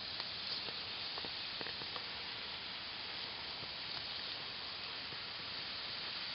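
Two small dogs digging in soft dirt with their front paws, a steady scratching hiss with a few light ticks in the first couple of seconds.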